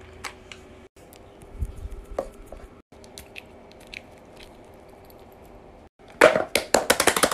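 Light handling of silicone and plastic fidget toys: scattered soft taps, clicks and squishes over a faint steady hum. About six seconds in, a much louder run of rapid clicking starts.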